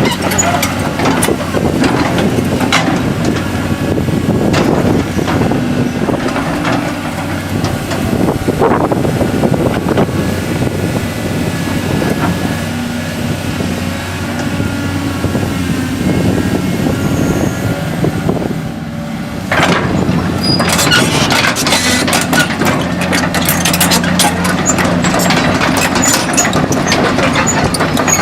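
Caterpillar 321D LCR excavator's diesel engine running steadily, with sharp knocks and clanks throughout that become much busier about two-thirds of the way through.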